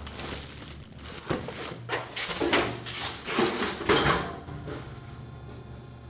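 A run of irregular clattering knocks and rattles, a comedy sound effect, for about four seconds, then only a low steady hum.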